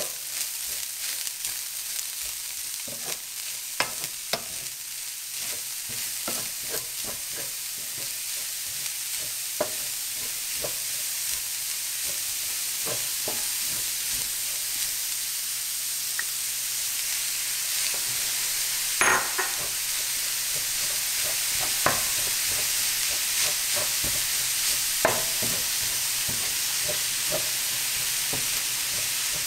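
Cauliflower rice and diced vegetables sizzling in a stainless steel skillet while a wooden spatula stirs and scrapes them, with scattered knocks of the spatula against the pan. The sizzle grows slightly louder as the stirring goes on.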